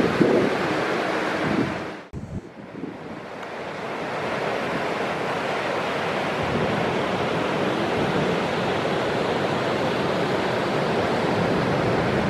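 Heavy ocean surf breaking, a steady rushing wash of waves with wind buffeting the microphone. About two seconds in the sound cuts out abruptly, then fades back up over the next two seconds.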